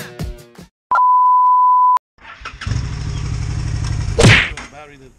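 A steady one-second beep tone, then a Honda Shadow motorcycle's V-twin engine running with a low, steady rumble. A loud knock sounds near the end.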